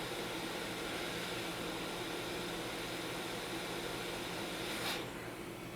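Hot air rework station blowing a steady airy hiss while heating a chip to lift it off the logic board; about five seconds in the hiss briefly swells, then thins and drops a little.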